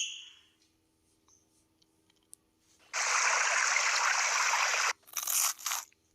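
A sound-effect preview: an even hiss about two seconds long that starts and cuts off abruptly, followed by a shorter, broken burst of noise.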